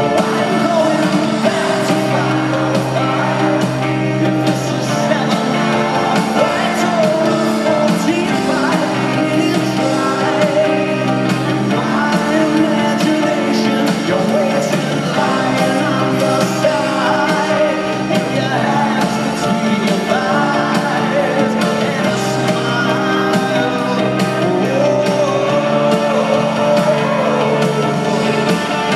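Rock band playing live in an arena, heard from the audience with the hall's echo: electric guitars, drums, keyboards and sustained bass chords under a sung vocal.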